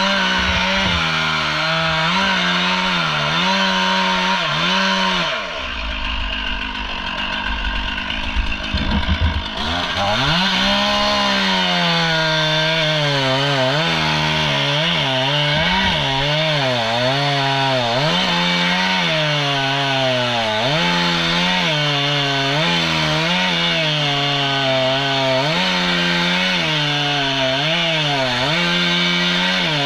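Two-stroke Stihl chainsaw cutting through a palm trunk at full throttle, its engine note rising and falling as the chain bites. About five seconds in the engine drops away for a few seconds under knocks and rumble, then revs back up into the cut.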